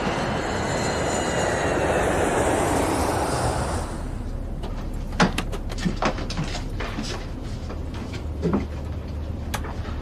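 A loud rushing noise for about four seconds, then a steady low passenger-cabin hum with scattered clicks and knocks.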